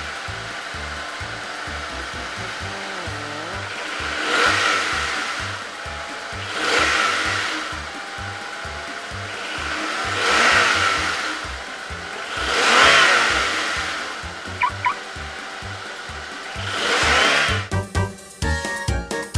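Background music with a steady beat, over which a car engine revving sound effect swells up and dies away about five times. Near the end the music switches to a jingly tune.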